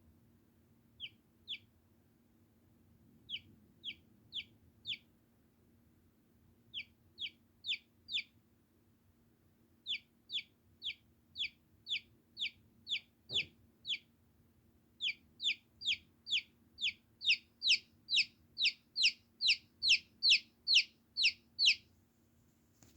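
Baby chick peeping: short, high single peeps, each dropping in pitch. They come in scattered groups at first, then in a steady run of about two to three a second that grows louder over the last several seconds.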